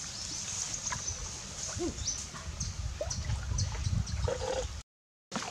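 Water sloshing and dripping as a bamboo pole paddles a bamboo raft along, with birds chirping in short high calls. The sound cuts out completely for about half a second near the end.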